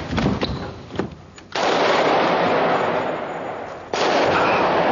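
Gunfire in bursts: loud shooting starts suddenly about a second and a half in, fades away, and breaks out again near the end.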